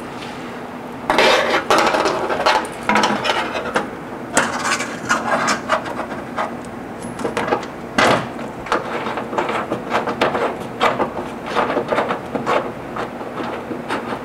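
Irregular scraping, rubbing and clicking of fingers working a small part from a hood-strut kit through a hole in a car's fibrous hood insulation liner, with a sharper click about eight seconds in.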